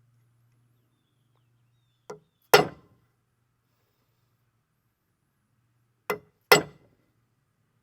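Hammer driving a punch into the steel piston nut, staking metal over the locking set screw so it cannot back out. There are two pairs of blows, each a light tap followed by a hard metallic strike, about two seconds in and again about six seconds in.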